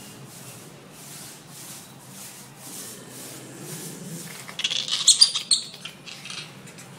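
A small monkey giving a short burst of high-pitched squeaks close to the microphone, about two-thirds of the way through, after a few quieter seconds.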